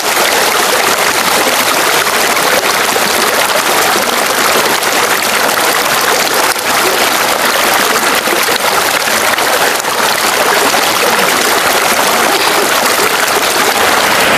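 Water from stone bathing spouts pouring steadily into a pool and splashing on the surface.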